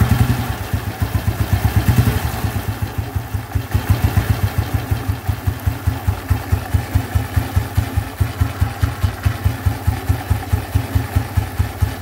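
Royal Enfield Bullet's cast-iron 350cc single-cylinder engine idling with a slow, even beat, its primary cover off so the clutch and primary chain turn exposed.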